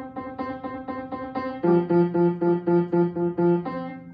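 Piano notes struck in a quick, even repeated pattern, about four or five a second; a louder, lower chord joins in about one and a half seconds in.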